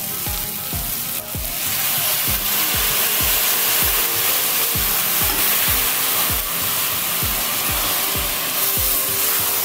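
Frying sizzle and steel-spatula stirring in a stainless steel kadhai as wet coriander chutney is worked into broccoli, under background music with a steady beat of about two thumps a second. The sizzle grows louder about a second and a half in.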